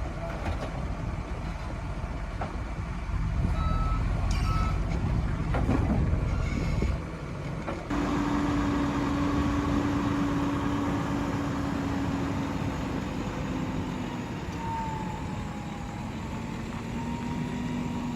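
Heavy machinery engine running with a deep, steady rumble, with two short high beeps about four seconds in. About halfway there is an abrupt change to a different steady machine drone carrying a long held tone.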